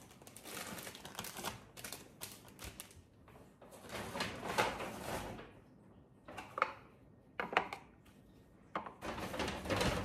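Paper shopping bag and plastic-wrapped goods rustling and crinkling as items are lifted out of the bag, in irregular bursts with short pauses between.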